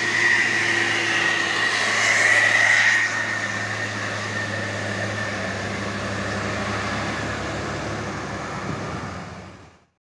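Tour bus engine running as the bus passes close by and drives away, with a high steady whine over the engine in the first three seconds. The sound fades out just before the end.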